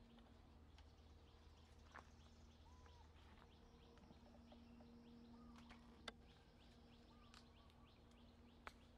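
Near silence: faint outdoor ambience with a few faint bird-like chirps and three brief soft clicks.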